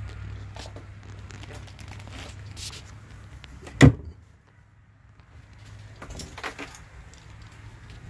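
A motorhome bedroom drawer shut with a single sharp knock about four seconds in. Lighter clicks and rattles come before and after it, over a steady low hum.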